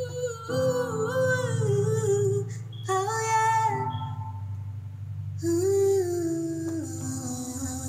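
A woman's singing voice holding long notes with no clear words, sliding between pitches, over a steady low hum.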